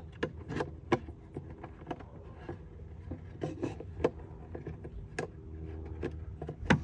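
Irregular sharp plastic clicks and taps as the bulb sockets and housing of a tail-light assembly are handled, with the loudest click near the end, over a steady low hum.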